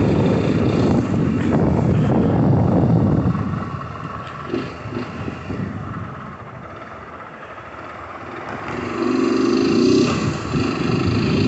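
Motorcycle and traffic noise: a steady low engine rumble that dies down around the middle and swells back up near the end.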